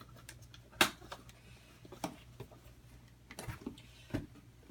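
Scattered clicks and knocks of a headset box and its packaging being handled and opened, the sharpest about a second in and a cluster near the end.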